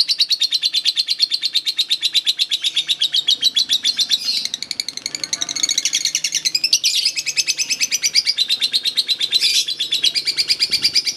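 Lovebird singing a long, unbroken 'ngekek' chatter: a fast, shrill string of high notes, about ten or more a second, with no pause.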